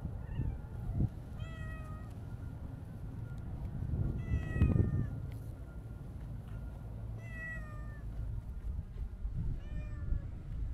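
Siamese-mix cat meowing four times, each meow short and falling slightly in pitch, spaced a few seconds apart.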